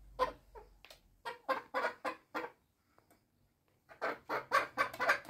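Chickens clucking in short repeated calls, falling silent for a moment midway, then clucking in a quicker run of about five calls a second near the end.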